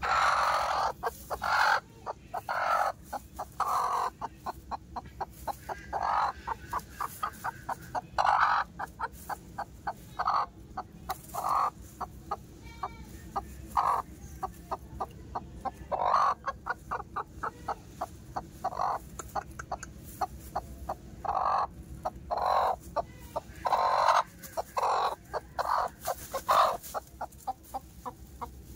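Chickens clucking: quick runs of short clucks throughout, broken by longer, louder calls that recur about every eight seconds.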